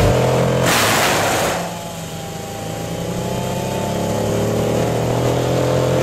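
Red Roo 750X drum-style woodchipper running as a hardwood log is fed in: a loud burst of chipping about a second in and another at the end. Between the bursts the engine sags under the load and slowly climbs back up.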